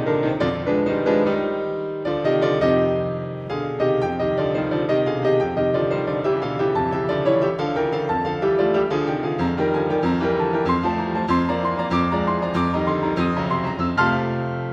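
Background instrumental music, a piano-like keyboard playing a steady stream of notes.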